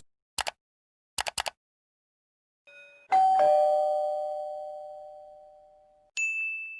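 A few short clicks, then a doorbell chime going ding-dong: two struck tones, the second lower, ringing out over about three seconds. Near the end a single high steady beep starts.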